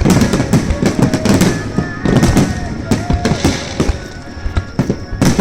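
Aerial fireworks shells bursting in rapid succession: a dense run of overlapping bangs and crackles, with one loud bang near the end.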